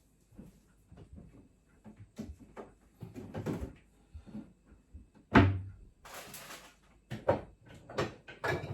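Kitchen cupboard door closing with one loud thump about five seconds in, among lighter knocks and clatter of items being handled and put away.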